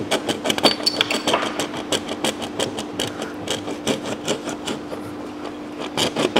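Plastic thermostat housing on a Kia/Hyundai V6 clicking and knocking in rapid, irregular taps as it is wiggled by hand to pull it free, held by its O-ring on the centre coolant passage. A steady low hum runs underneath.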